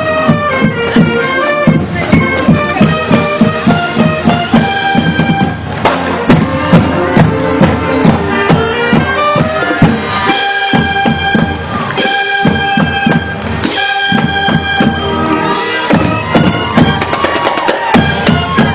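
Marching band playing on the march: brass and woodwinds over a steady drum beat, with long held chords in the second half.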